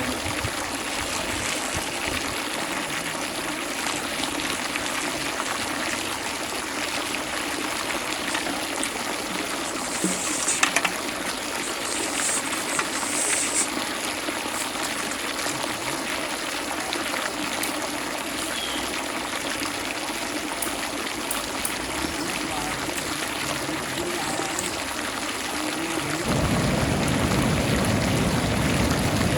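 Steady rain with water trickling and running. Near the end, a louder, deeper rushing sound comes in and holds steady.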